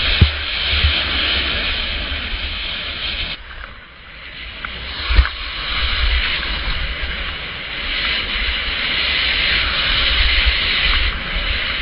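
Skis hissing over snow on a downhill run, with wind rumbling on the action camera's microphone. The hiss fades briefly about four seconds in, and two sharp knocks come, one right at the start and one about five seconds in.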